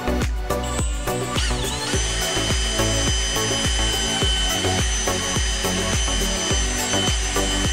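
Cordless drill whining as it spins up about a second and a half in and then runs steadily, drilling holes to mount a VHF remote-mic hanger. Background music with a steady beat plays underneath.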